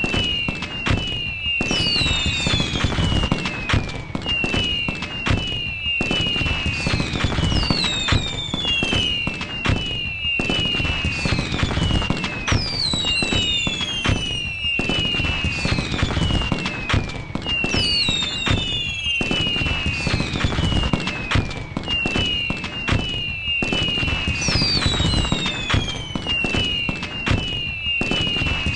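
Cartoon fireworks sound effect: whistles falling in pitch over dense crackling and bangs, repeating as a loop about every five and a half seconds.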